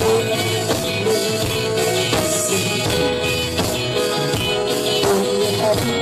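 Live band music: acoustic guitar and keyboard playing over a steady beat.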